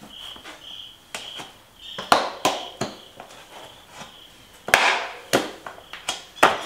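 A Schwalbe G-One RS 700x40c gravel tire being worked onto a bicycle rim by hand, giving a series of sharp snaps and slaps as the bead goes over the rim edge. About seven loud ones come around the two-second mark and in the second half.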